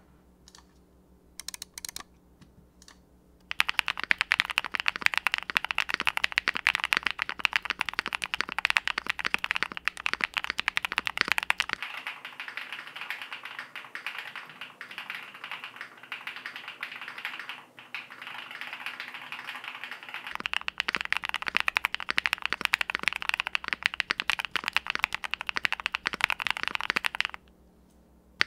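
TKD Cycle 8 TKL mechanical keyboard being typed on, with stock Epomaker Jade Blossom switches on a polycarbonate plate, bean gaskets, and PE, plate and case foams installed. A few single keystrokes come first, then steady fast typing that stops shortly before the end.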